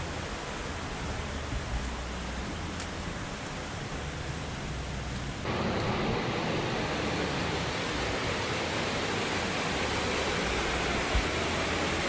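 Rushing water of a rocky mountain stream and its small cascades, a steady hiss that gets louder about halfway through.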